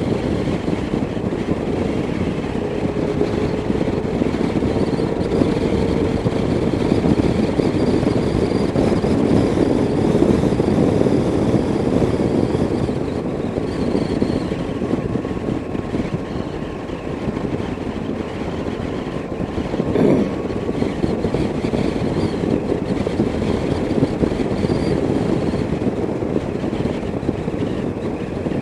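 Motorcycle cruising at a steady road speed, its engine running under wind and road noise at a helmet-mounted microphone. A single short knock is heard about two-thirds of the way through.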